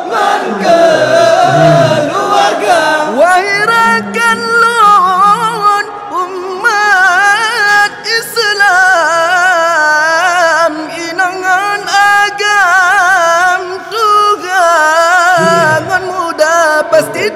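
A man singing a sahur wake-up song in Malay, with a wavering, ornamented melody held over music, calling people to rise for the pre-dawn Ramadan meal.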